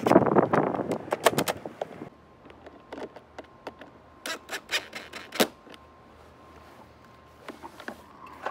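Hands working on a car door handle assembly: about two seconds of loud scraping and rustling, then scattered sharp clicks and taps of small hard parts being handled, with a faint steady tone in the background.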